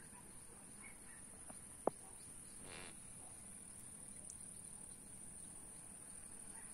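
Crickets chirring continuously in a steady, high-pitched band. A single sharp click comes about two seconds in, and a brief soft rush follows about a second later.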